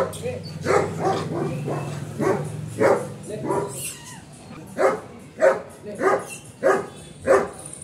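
A dog barking over and over, about one bark every half second to second, with a short break around the middle.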